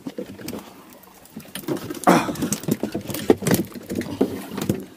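Irregular knocks, slaps and taps on a small fishing boat, sparse at first and coming thick and fast from about a second and a half in.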